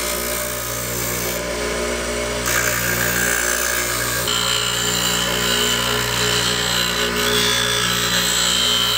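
Bench grinder motor running with a steady hum while a steel plane iron is ground on its white wheel, giving a hiss that changes in tone a couple of times. The blade's out-of-square edge is being ground square and given a new bevel of about 30 degrees.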